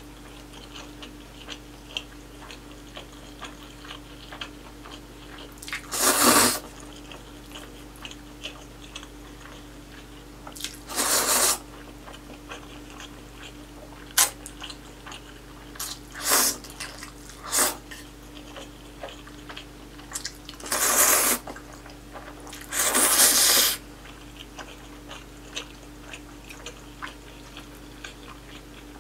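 Close-miked eating of spicy cold noodles: about six loud slurps a few seconds apart, the longest near the end, with soft chewing between them.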